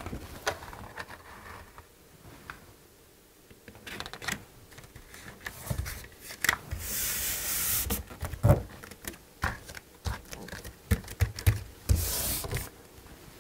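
A paper mounting template rustling and crinkling as it is positioned and smoothed flat against a wall by hand, with scattered light taps and two longer rubbing swishes, one about seven seconds in and one near the end.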